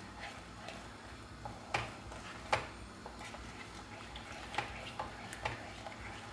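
Wooden spoon stirring a cream and black-pepper sauce in a pan, with scattered light knocks of the spoon against the pan.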